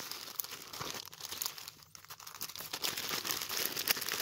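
Thin plastic mailer bag crinkling and rustling in quick irregular crackles as hands handle and pull it open, busier in the second half.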